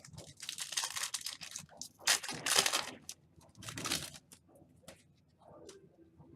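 Football trading cards and their packaging being handled: crinkling and rustling in three bursts, the loudest in the middle.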